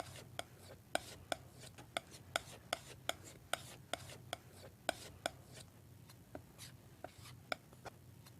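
Palette knife mixing oil paint on a painting palette: sharp metallic taps at about two to three a second, with soft scraping strokes between them, over a low steady hum.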